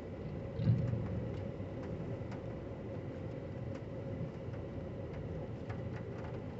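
Steady vehicle running noise, a low rumble with a faint steady hum, dotted with scattered light ticks; a brief low thump about a second in.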